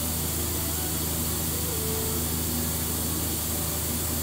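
Vertical milling machine running with a steady hum and hiss.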